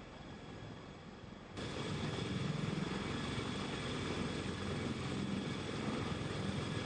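Sikorsky CH-53K King Stallion heavy-lift helicopter hovering just off the ground. Its rotors chop rapidly and its GE38 turboshaft engines give a steady high whine. The level jumps up suddenly about a second and a half in.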